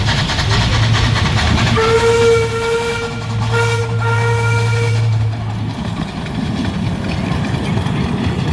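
Two blasts of a steam whistle at one steady pitch, about three seconds in all, the first broken off briefly before the second. A low engine hum runs underneath and fades soon after.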